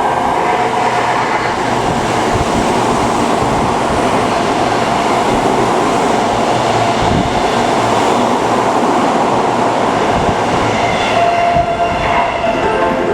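A Tokyo Metro Tozai Line rapid train passing through the station without stopping, a loud steady rush of running noise with wheel clatter. Near the end, as the train clears, the platform's passing-warning chime comes through again.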